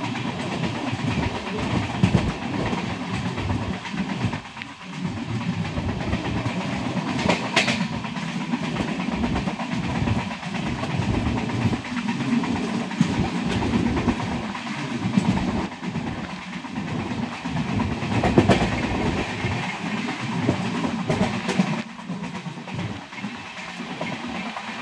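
Express passenger train running at speed, heard from an open coach door: a steady rumble and rattle of the coach, with the clickety-clack of the wheels over rail joints. It is a little quieter in the last few seconds.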